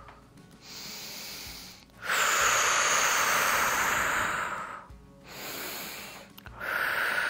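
A woman's deliberate, audible breathing during a hip-lift bridge exercise: a quieter breath, then a long, strong exhale of about three seconds as the hips rise, another quieter breath, and a second strong exhale starting near the end.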